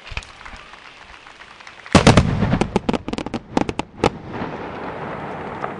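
Fireworks shells bursting: a few scattered bangs, then about two seconds in a rapid volley of loud bangs and cracks lasting about two seconds. After that comes a steady noisy wash that cuts off suddenly.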